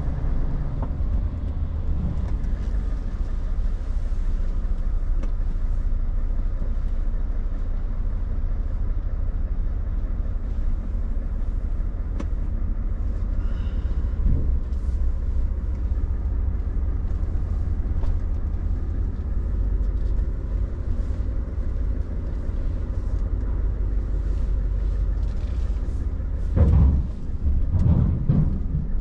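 Scania truck's diesel engine running steadily at low speed, heard from inside the cab as it rolls slowly. Near the end come a few heavy knocks as the wheels cross the ferry ramp.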